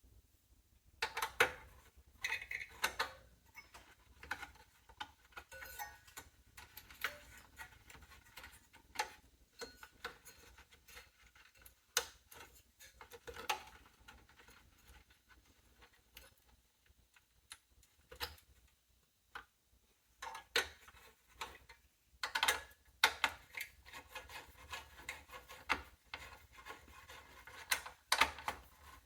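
Hands working on the CPU area of a small desktop PC: irregular clicks, taps and scrapes of small metal and plastic parts, with the busiest clusters about a second in and again towards the end.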